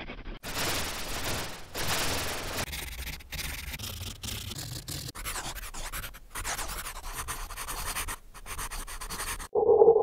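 A pencil's writing scratch, played as a run of digitally altered sound-effect versions, each a second or two long, cutting abruptly from one to the next. Near the end it turns into a muffled version with a steady hum-like pitch.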